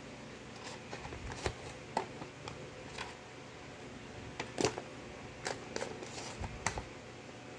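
A metal spoon tapping and scraping against a clear plastic container as julienned cucumber is pushed out into a bowl: a scatter of light clicks with soft rustling of the cut vegetables.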